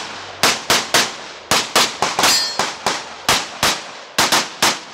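Open-division competition pistol firing about a dozen shots, mostly in quick pairs, with a short metallic ring after one shot about two seconds in.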